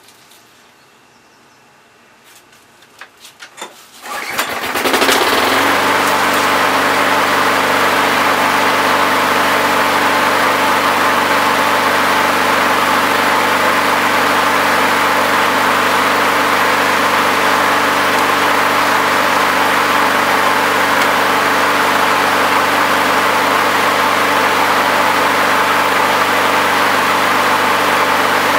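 Craftsman lawn mower's 6.0 hp Briggs & Stratton engine, primed six times, is pull-started. It catches about four seconds in and then runs steadily at its set throttle.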